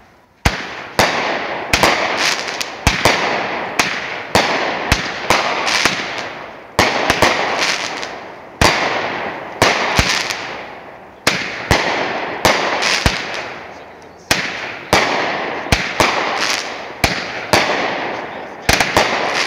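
A Black Cat 'Walking Dead' 200-gram, 19-shot firework cake firing its shells in quick succession, about one or two sharp bangs a second with a few short pauses. Each bang is followed by a fading crackle as the stars burst.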